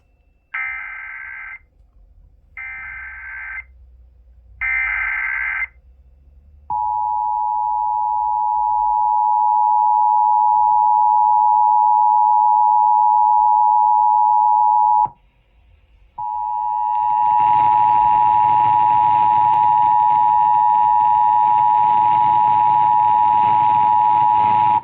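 Emergency Alert System activation: three short bursts of SAME header data tones, then the steady two-tone EAS attention signal. The tone drops out for about a second partway through and resumes, with a hiss coming in beneath it shortly after.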